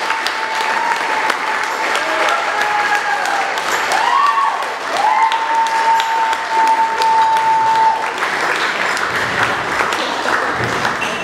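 Audience applauding a live band's song, with a high held tone over the clapping from about four to eight seconds in.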